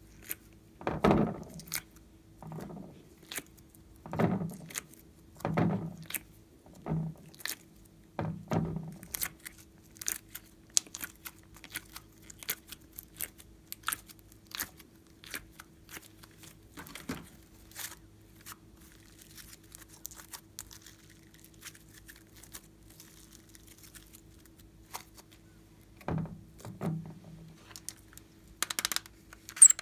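Slime being pressed out of a soft silicone ice-cube tray: a series of wet squelches through the first nine seconds, then many small sticky clicks and crackles, with two more squelches near the end. A faint steady hum lies underneath.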